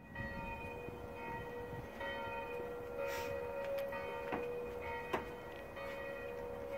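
Church bells ringing, struck over and over about once a second so that their tones overlap and hang on. A couple of short, sharp clicks come through past the middle.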